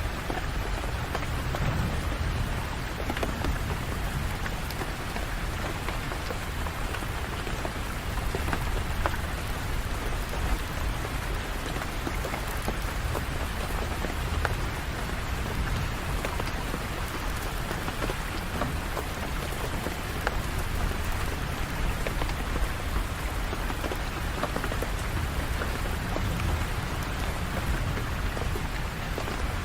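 Steady heavy rain: a dense, even patter of drops over a constant low rumble, with no single event standing out.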